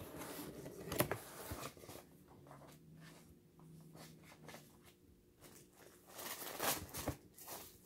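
Cardboard box and packaging being handled on a table: rustling and scraping with a sharp knock about a second in, a quieter stretch in the middle, then more rustling near the end.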